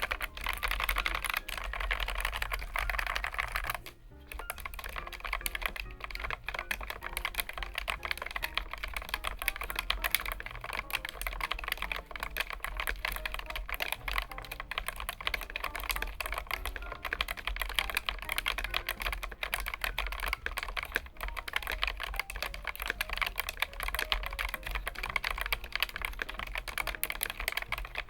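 Continuous fast typing on a Keychron K1 Max low-profile mechanical keyboard with Gateron low-profile switches: a dense stream of light key clicks, with a brief pause about four seconds in.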